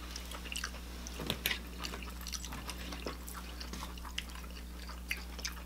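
Quiet eating sounds: forks and a knife clicking and scraping on china plates, with wet chewing and mouth smacks, many small scattered ticks and clicks over a low steady hum.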